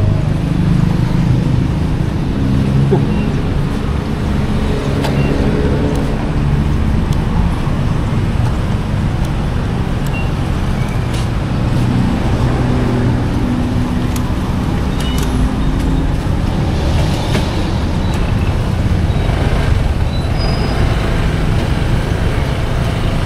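Street traffic: a steady low rumble of motor vehicle engines, with no single event standing out.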